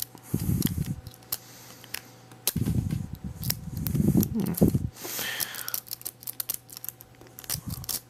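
A city rake scraping and clicking in and out over the pins of a 5-pin Tri-Circle ZX850 padlock, the pins set under light tension, in many quick irregular ticks. Dull low rubbing from the hands on the lock body comes through about half a second in and again from about two and a half to five seconds in, louder than the picking.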